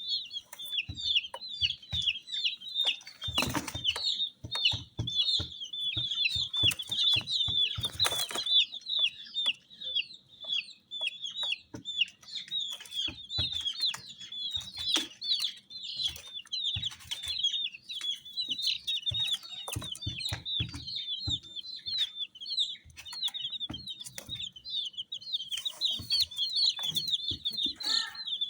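A group of baby chicks peeping without pause, a dense chorus of short high chirps, with scattered knocks and scuffs among them.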